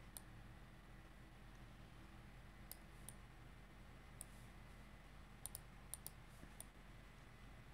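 Faint computer mouse clicks over near-silent room tone, about nine in all, some single and some in quick pairs.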